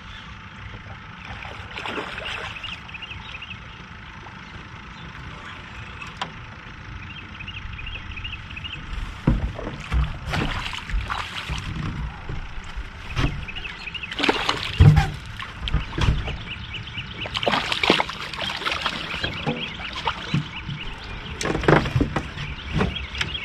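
Fishing reel being wound in bursts of fine, fast ticking while a hooked bass is fought to the boat. The second half fills with splashing at the surface and irregular knocks and low thumps against the aluminum boat as the fish is brought in.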